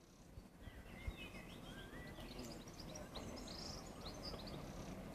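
Songbirds chirping and trilling in short bursts for a few seconds, over a faint low outdoor rumble.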